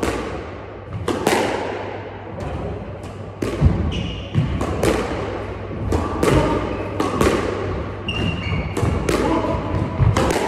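Squash rally: the ball smacked by rackets and off the court walls, sharp echoing hits about once a second, with a few short squeaks from shoes on the court floor.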